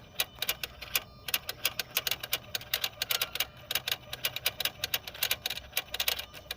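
Rapid, somewhat irregular clicking, about nine clicks a second, with a faint steady hum beneath, from a Chevrolet Lacetti whose electrical fault has come back with the trunk closed, keeping the throttle flap moving and the pump running.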